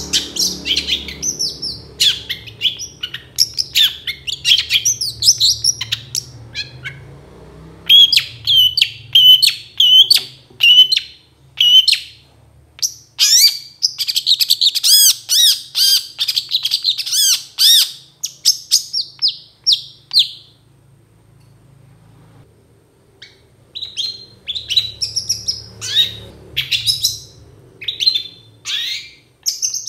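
Caged long-tailed shrike (cendet) singing loudly: a fast string of sharp chattering and whistled notes, with a dense run of rapidly repeated notes in the middle. It pauses for about two seconds about two-thirds of the way through, then resumes.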